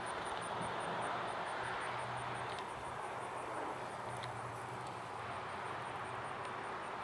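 Steady outdoor background noise with a low hum underneath, and a faint, high, even ticking about four times a second that drops out for a couple of seconds in the middle.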